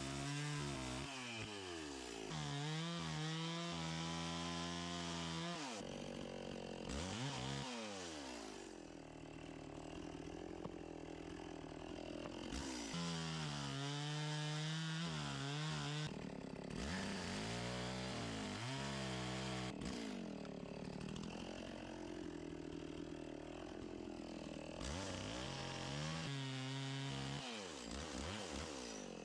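Gas chainsaw carving a log: the engine idles, revs up and down repeatedly, and bogs into the wood under load for a few seconds at a time.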